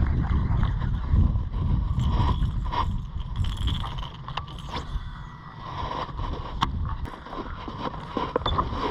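Low, uneven rumble of a small jon boat on the water, with scattered light clicks and knocks.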